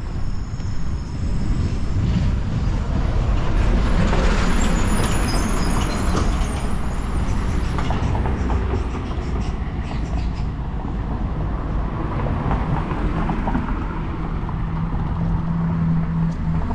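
Road traffic on a city avenue: a large vehicle passes close, its engine rumble swelling about four seconds in, with a thin high squeal over it for a few seconds.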